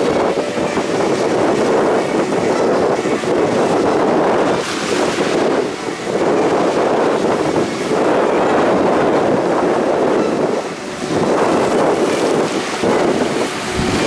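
Wind buffeting the microphone over the rush of sea surf, a loud steady noise that eases briefly a few times.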